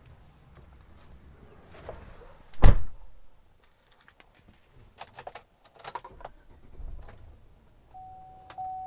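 Handling noises inside a 2007 Chevrolet Avalanche's cab: one loud knock about a quarter of the way in, then a few clicks and light rattles. Near the end a steady dashboard warning chime starts, with the ignition switched on and the engine off.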